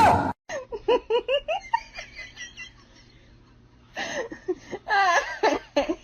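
Laughter in short rapid bursts with a shifting pitch, pausing for a couple of seconds and then breaking out again near the end, after a brief loud noise at the very start.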